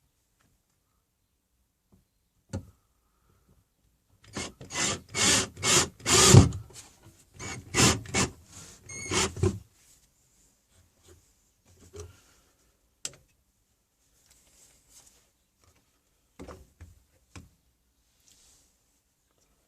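A hand tool rubbed back and forth on wood, about a dozen quick strokes over some five seconds with a short break partway through. A single knock comes before the strokes, and a sharp click and a few light knocks of wood come after.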